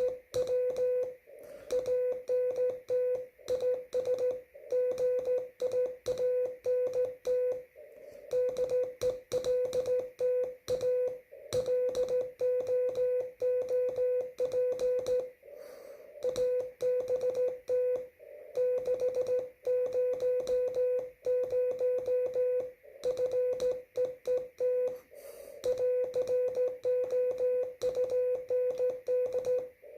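Morse code (CW) at slow speed: a single steady tone keyed on and off in dots and dashes, with short pauses between groups every few seconds, over a faint steady hiss.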